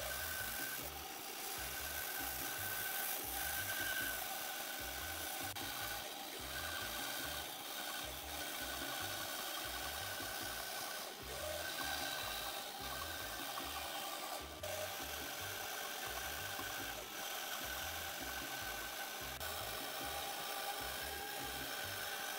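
Benchtop bandsaw running, its thin blade cutting a curve through a wooden board with a steady rasping hiss and a high tone that comes and goes.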